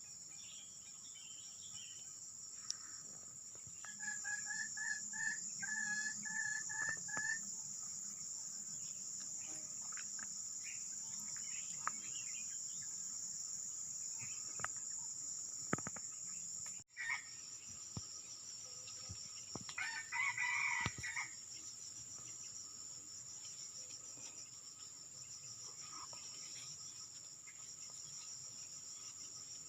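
Junglefowl crowing, rooster-like: one crow about four seconds in and another around twenty seconds in, over a steady high drone of insects. It is the junglefowl call the hunters use as a lure, or a wild bird answering it.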